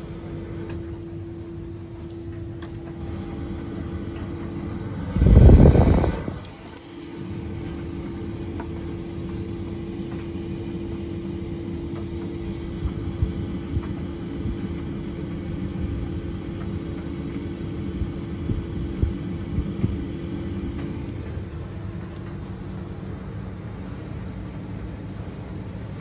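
Small front-loading electric tumble dryer running: a steady motor hum with a low rumble from the turning drum and a few light clicks from the tumbling load. A brief loud burst of noise comes about five seconds in.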